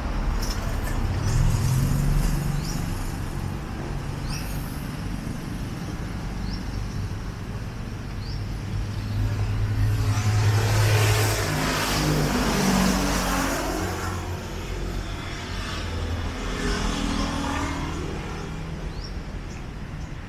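Motor vehicle traffic: an engine running with a steady low hum, and a louder vehicle passing about halfway through, followed by a smaller swell a few seconds later. Faint short high chirps recur every second or two.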